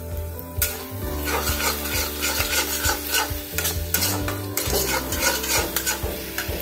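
A flat steel spatula stirring and scraping a spice paste around a kadai, with the paste sizzling in oil. The sound starts a little over half a second in, in many short strokes. The ginger-tomato masala with ground coriander, cumin and turmeric is being fried down until the oil separates.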